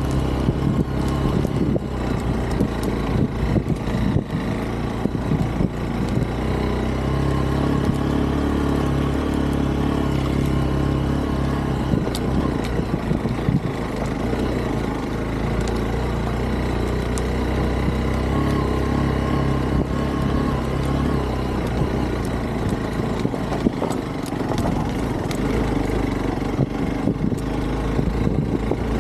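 Hero Xpulse 200 4V's single-cylinder engine running steadily as the bike rides over a rocky track, with scattered light clicks and knocks throughout.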